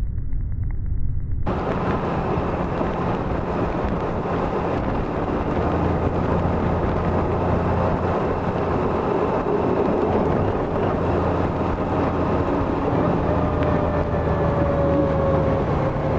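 Honda Gold Wing motorcycle cruising at steady speed: a steady low engine drone under constant wind and road noise, sounding muffled for the first second and a half.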